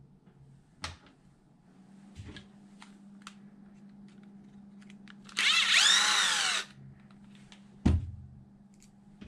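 Cordless drill-driver spinning briefly for a little over a second, its pitch rising and falling with the trigger, as it backs the old steering rod out of the servo horn. A few light clicks of small parts come before it, and a single sharp knock follows about two seconds later.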